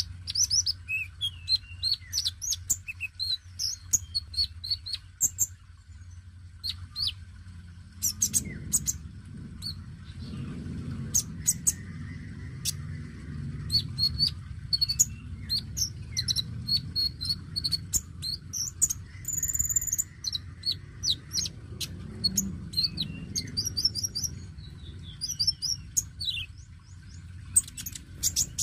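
A caged male sunbird (kolibri konin) sings a busy, high-pitched twittering song of rapid short chirps and trills in bursts with brief pauses, over a steady low hum. This is the kind of vigorous song played to get young wild-caught konin to start singing.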